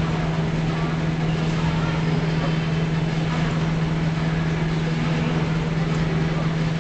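A steady low hum with one constant tone, over an even hiss of room noise.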